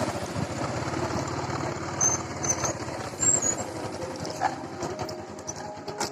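Motorcycle engine running steadily as the bike is ridden along a rough off-road track.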